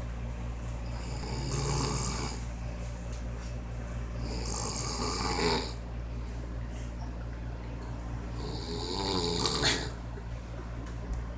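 A man snoring: three loud snores about three and a half seconds apart, the last the loudest, over a steady low hum.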